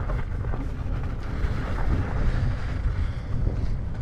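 Wind buffeting the action camera's microphone as the e-bike rolls along, a steady low rumble with a rushing hiss over it.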